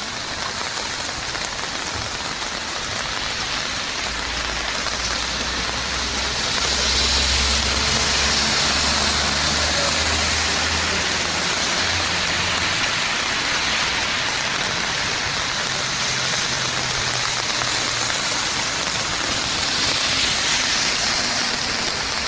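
Steady rain falling on a wet city street, a continuous hiss of drops. A low engine rumble from passing traffic rises under it from about three seconds in and fades out around twelve seconds.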